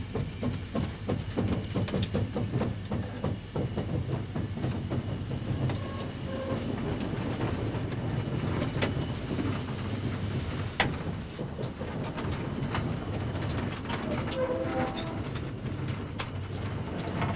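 LMS Princess Coronation class 4-6-2 steam locomotive Duchess of Hamilton moving off slowly in reverse, heard from its cab. A low rumble runs under repeated clanks and the click of wheels over rail joints, with one sharp clank about eleven seconds in.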